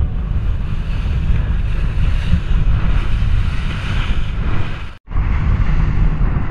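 Wind buffeting the microphone over the rush of sea water from a boat under way. The sound cuts out abruptly for a moment about five seconds in, then resumes.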